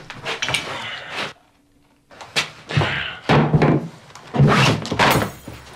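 A man breathing hard and grunting in pain, in heavy gasps about a second long with a short silent pause between the first and the rest, mixed with a few knocks as an axe is taken down and handled.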